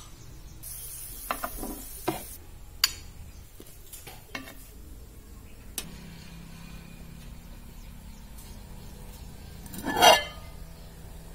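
Metal tongs clicking lightly against a ceramic plate a few times, then about ten seconds in a louder short scrape as the plate is shifted on a wooden cutting board.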